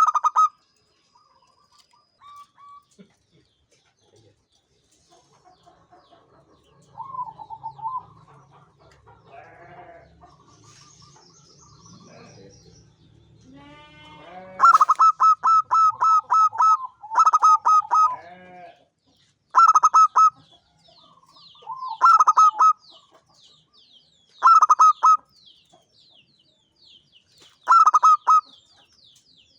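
Zebra dove (perkutut) cooing: soft calls at first, then from about the middle a run of loud, quick stuttering coo phrases, repeated every two to three seconds. Faint high chirping of a small bird behind it.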